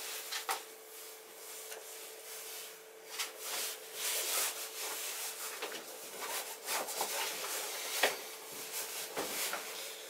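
Rustling and rubbing of a rucksack's fabric and straps as it is handled and packed, with a few sharper clicks from its fittings.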